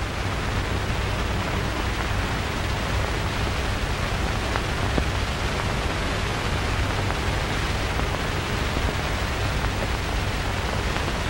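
Steady hiss and low hum of an old film's optical soundtrack, with a couple of faint ticks about halfway through.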